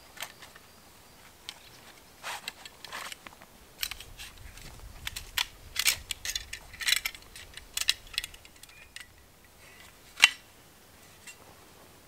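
Folding bow saw being unfolded and assembled by hand: a run of light metal clicks and rattles, with one loud sharp click a little after ten seconds in.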